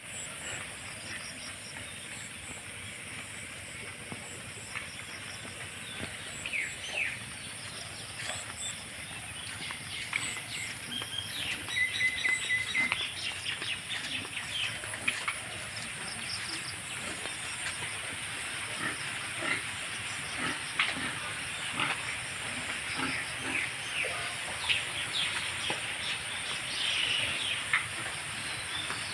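Pigs squealing in short, scattered calls over a steady high hiss, with bursts of calling about a quarter and near the end.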